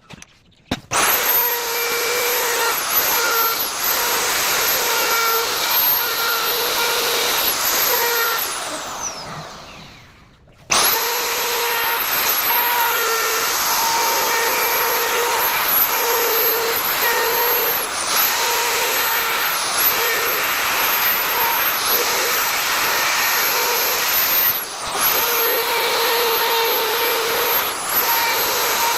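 Electric wood router running at high speed with a high whine, its pitch dipping briefly now and then as it cuts. It starts about a second in, is switched off about eight seconds in and winds down with a falling whine, then starts again about two seconds later.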